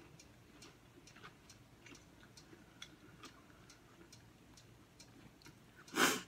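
Faint, regular ticking, about two ticks a second, in a quiet room. About six seconds in comes one short, louder rush of noise.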